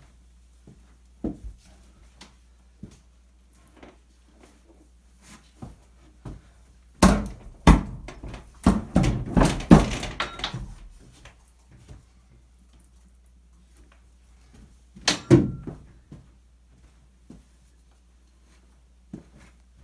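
Knocks and thuds from a heavy steel gun safe being worked and shifted by hand, with tire irons and golf balls knocking against it and the floor. There are scattered single knocks, a dense run of loud knocks about seven to ten seconds in, and another loud burst around fifteen seconds in.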